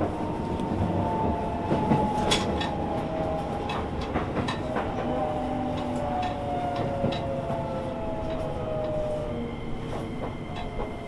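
Shin-Keisei N800 series train's Toyo IGBT VVVF inverter and traction motors whining, several tones falling steadily in pitch as the train slows, typical of braking on the approach to a station. Wheels click over rail joints now and then, and a steady higher tone comes in near the end.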